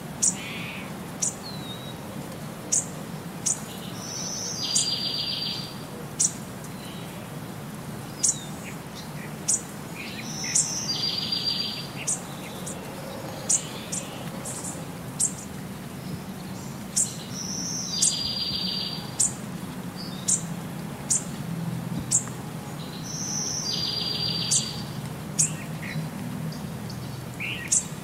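Birdsong: sharp high chirps about once or twice a second, and a short buzzy phrase that comes back about every six and a half seconds, over a steady low hum. The same pattern recurs evenly, as a looped birdsong track does.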